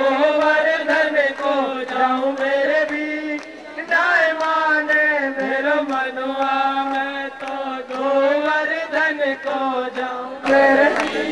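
Group of devotees chanting a devotional kirtan in unison, one held, slowly moving melodic line. It drops briefly about three and a half seconds in and comes back louder near the end.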